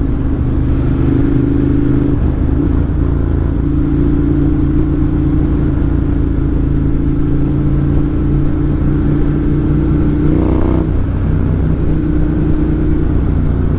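Ducati Monster 1200 S's L-twin engine running steadily at cruising speed, with a brief rise in revs about ten seconds in. The baffles are out of its exhaust, so it is really loud.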